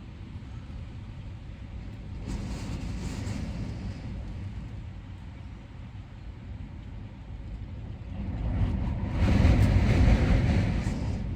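Strong wind gusting against a pickup truck's camper shell: a steady low rumble, a short gust about two seconds in, then a much louder gust building from about eight seconds, peaking around ten and easing off near the end.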